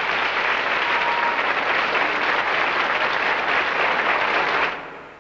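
Large indoor audience applauding steadily, fading away near the end.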